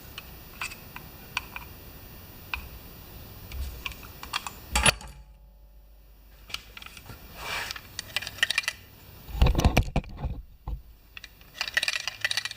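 Small metal tools and parts being handled on a workbench: scattered light clicks and clinks, a sharper knock about five seconds in, and a couple of dull thumps around ten seconds in.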